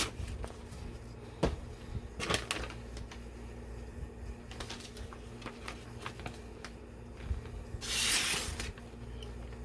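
Small clicks and taps of a folding pocket knife being handled, then about eight seconds in a brief rasping hiss as the knife's edge slices through material in an edge test.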